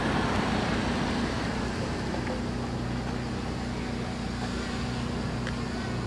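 Parrot Anafi quadcopter's propellers humming steadily as the drone descends to land.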